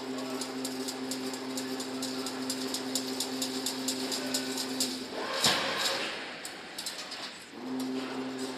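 Double-wire automatic chain link fence machine running: a steady motor hum with quick, regular clicks of the mechanism. About five seconds in the hum stops and a loud rushing clatter follows, and the hum starts again near the end.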